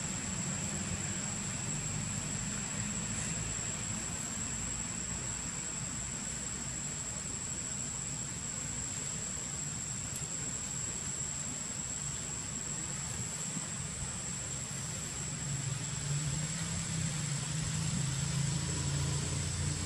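A steady low engine hum, growing louder in the last few seconds, under a constant thin high-pitched whine.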